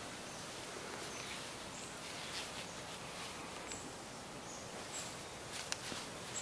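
Quiet outdoor ambience: a steady hiss with short, faint high chirps now and then, and a sharp click near the end.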